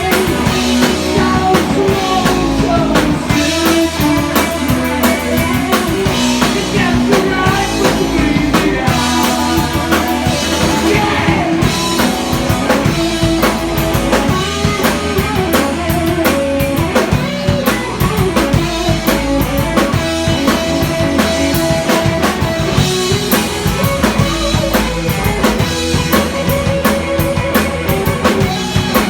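Heavy metal band playing live: pounding drum kit and electric guitar, with some singing, recorded from the crowd on a cell phone.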